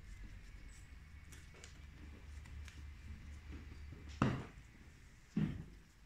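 Trading cards being handled and fanned out in the hands over a playmat, with small ticks and two soft knocks about four and five and a half seconds in.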